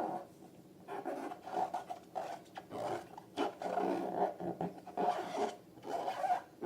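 Rubber balloons rubbing and squeaking in short, irregular bursts.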